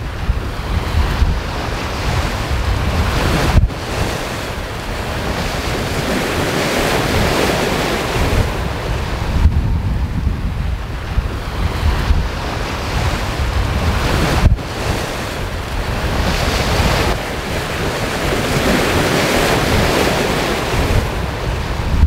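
Sea water rushing and surging along a sailing yacht's hull as it sails fast through choppy waves, the wash swelling and easing every few seconds. Heavy wind buffets the microphone throughout, and the sound breaks off abruptly twice.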